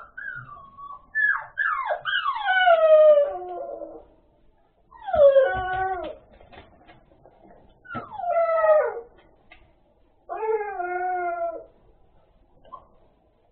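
Dog whining: drawn-out, high cries that mostly fall in pitch, in about four bouts a couple of seconds apart. The first bout is the longest, with several cries run together.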